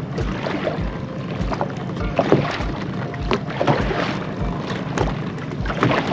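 Fishing rod and reel handled on a small boat: scattered clicks and knocks over a steady wash of boat and water noise, with a low pulse about every 0.6 s.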